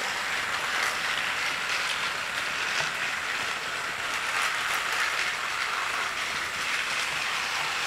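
Battery-powered Trackmaster Percy toy engine running along blue plastic track, a steady motor whir with its wheels rolling over the plastic.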